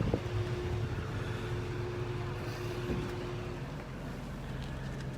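A heavy vehicle engine idling steadily, a low even hum, with a higher steady tone over it that stops about three and a half seconds in.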